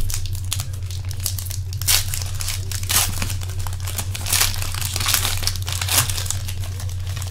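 Foil trading-card pack wrappers being torn open and crinkled by hand, with repeated sharp crackles, over a steady low hum.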